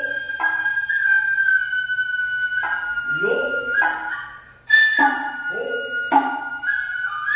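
Noh hayashi ensemble: the nohkan bamboo flute holds a high melody in long notes while the drummers give rising vocal calls (kakegoe), several of them followed by a sharp tsuzumi hand-drum stroke. The loudest stroke comes a little past halfway, just after a short dip in the sound.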